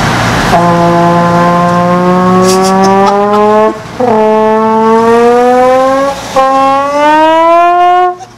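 Trombone blown loudly in three long notes, each sliding steadily upward in pitch with a short break between them, imitating a supercar's exhaust revving up through the gears.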